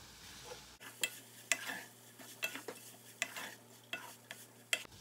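Wooden spatula stirring soybeans and small shrimp in a metal saucepan, knocking and scraping against the pan in irregular clicks. A faint sizzle comes from the sweet-salty liquid simmering down as the mirin is mixed in.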